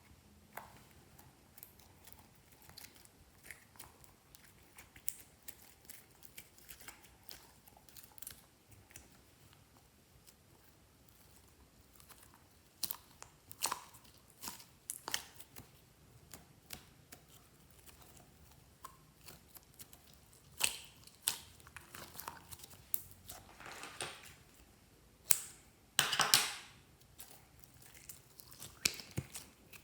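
Hands kneading and stretching slime, making scattered sticky clicks, pops and crackles that grow denser and louder about halfway through.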